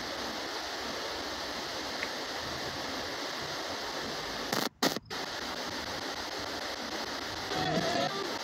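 Steady hiss of static from an S-Box ghost-box scanner sweeping in reverse. It drops out twice in quick succession a little under five seconds in, and a short garbled voice-like snatch comes through near the end.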